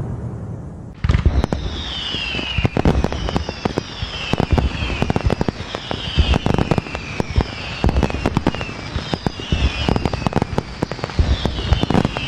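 Fireworks going off: a boom fading out, then from about a second in a dense run of sharp cracks and pops, with a falling whistle about every second and a half.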